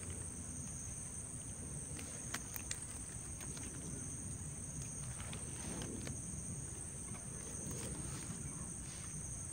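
Insects chirring steadily in a high, unbroken drone, over a low background hum, with a few faint clicks about two and a half seconds in.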